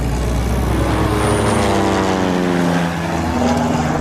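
Single-engine high-wing propeller plane taking off and flying low overhead, its engine and propeller at full power, the pitch sliding down as it passes.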